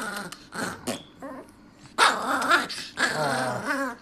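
Dogs growling and barking at each other, loudest in two bouts in the second half.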